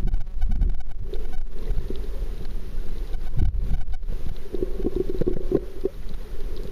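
Muffled underwater noise picked up by a waterproof pocket camera held below the surface: a low rumble of water moving against the camera, with uneven surges.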